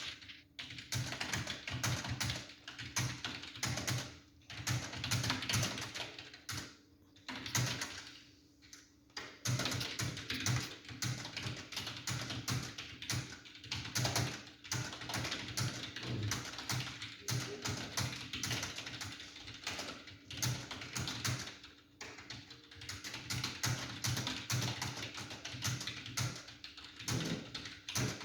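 Fast touch typing on a computer keyboard during a timed typing speed test: a rapid, continuous clatter of keystrokes with a few brief pauses.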